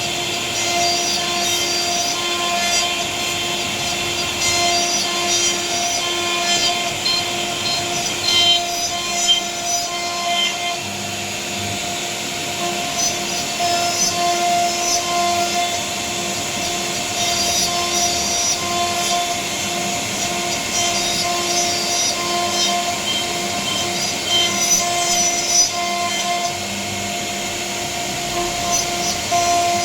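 CNC router spindle running with a steady whine while its bit cuts a panel. Scratchy cutting noise rises and falls as the tool moves through the material.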